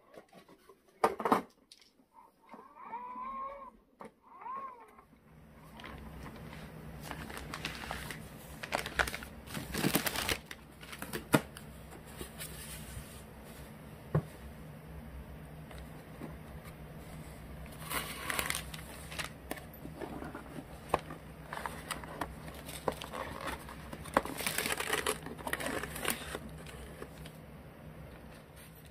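Rustling, scraping and knocks of a styrofoam ice cream cake box and its plastic packaging being handled, over a low steady hum. A sharp knock about a second in, and a few short squeaky gliding tones just after it.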